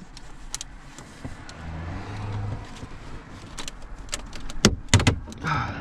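Plastic dash trim being pried and worked loose by hand: scattered clicks and light knocks, with a couple of sharper snaps about five seconds in as a retaining clip comes free.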